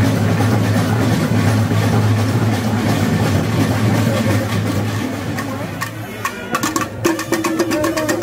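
Festival music with percussion over a steady engine hum. About seven seconds in, an idling engine's rapid, even ticking comes forward.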